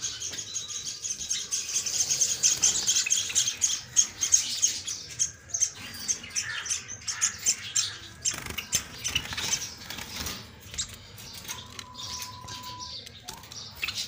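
Java sparrows in aviary cages chirping: many quick, high chirps overlapping, busiest in the first half and thinning out later.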